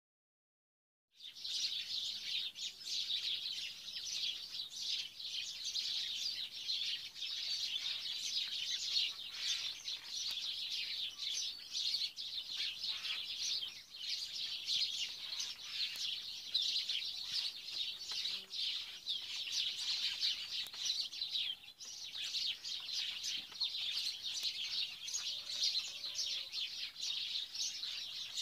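Many birds chirping together in a dense, unbroken chorus of short, high-pitched calls, starting about a second in, with a brief dip about two-thirds of the way through.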